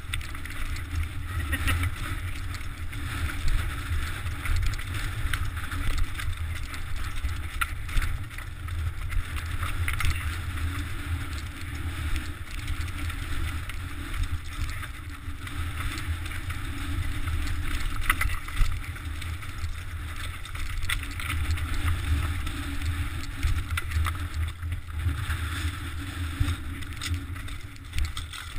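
Mountain bike ride down a rocky scree trail, heard from a GoPro on the bike: a steady low rumble of wind and vibration on the microphone, with rattling and frequent knocks as the tyres and frame hit loose stones.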